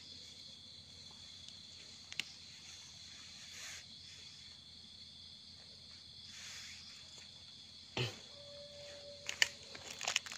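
Night insects, crickets, chirring in a steady high-pitched drone, with a few short clicks and rustles of hands in dry leaf litter, one about two seconds in and a cluster near the end.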